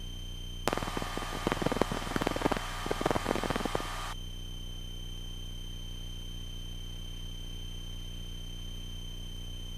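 Aircraft radio in the headset feed breaking into loud hiss and crackling static for about three and a half seconds, then cutting off suddenly. Under it runs a steady low hum with a thin high whine.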